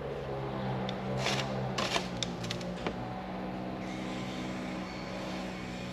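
Kaiweets ES20 electric screwdriver's small motor running steadily as it backs out Torx screws, its pitch stepping up about two seconds in, with a few light metallic clicks. The motor is really dragging on the larger Torx screws.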